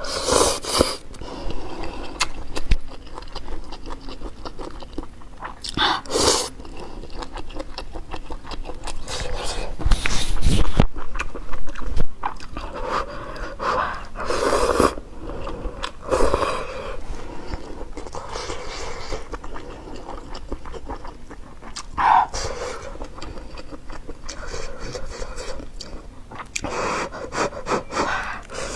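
Close-miked slurping of long noodles from a bowl of sour-soup fatty beef, in loud bursts every few seconds, with wet chewing and breathing in between.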